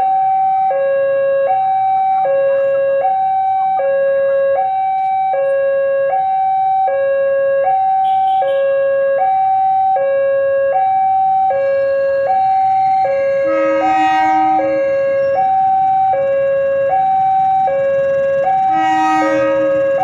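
Railway level-crossing warning alarm sounding a steady two-tone high-low pattern, each tone lasting about three-quarters of a second, signalling an approaching train. Twice, once around the middle and once near the end, a brief horn-like tone sounds over it.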